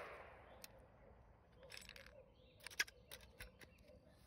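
The echo of a 9mm shot fading out in the first half second; this round ruptured its case. Then near silence with a few faint, scattered clicks.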